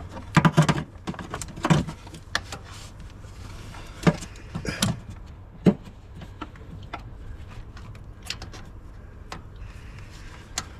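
Irregular metallic clinks and knocks of a socket and extension being worked down onto a bolt deep in a car's engine bay, busiest in the first couple of seconds, then scattered single knocks.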